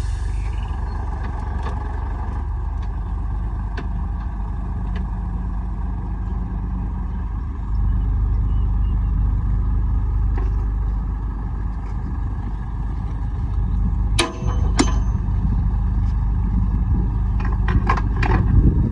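Heavy diesel earthmoving machinery running with a steady low rumble, louder from about eight seconds in as the engine works harder. A few short knocks come about fourteen seconds in and again near the end.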